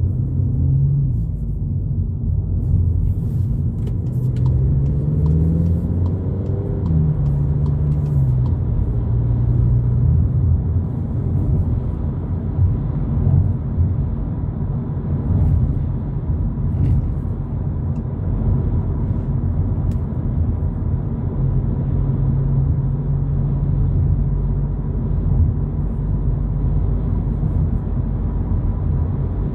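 2022 Volkswagen Polo GTI's turbocharged four-cylinder engine and road rumble heard from inside the cabin while driving. The engine note climbs in pitch as the car accelerates and drops back about seven seconds in, then runs at a steady cruise.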